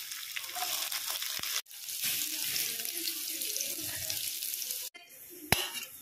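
Sliced onions and curry leaves sizzling in hot oil in a pan, a steady hiss that cuts out abruptly twice. Near the end it turns quieter, with a single sharp click.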